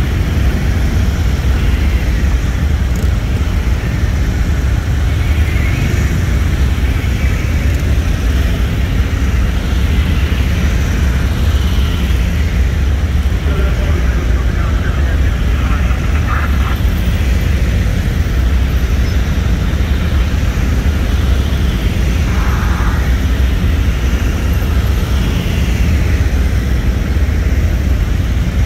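Many Harley-Davidson police motorcycles riding slowly past in a long column, their V-twin engines running together in a steady low rumble.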